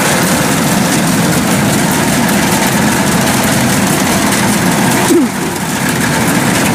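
Kubota DC-108X rice combine harvester's diesel engine running steadily as the machine cuts and threshes rice. There is a brief dip in the sound about five seconds in.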